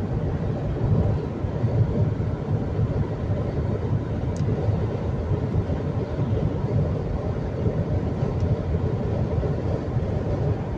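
Steady road and engine noise of a car driving at motorway speed, heard from inside the cabin: an even low rumble.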